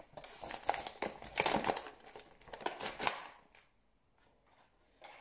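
Aluminium foil being unwrapped and crumpled by hand, a dense crinkling that stops about three seconds in.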